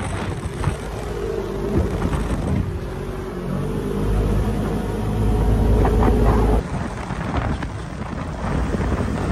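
Motor vehicle engine running with wind on the microphone. The low rumble swells for a couple of seconds, then the sound changes abruptly about two-thirds of the way through.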